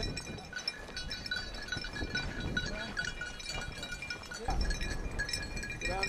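A bird dog's collar bell jingling irregularly as the dog runs, over wind rumbling on the microphone that swells near the end.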